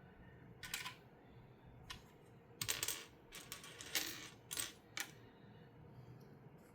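Small hard plastic Lego pieces clattering in several short bursts of clicks, as loose pieces are handled and dropped against one another.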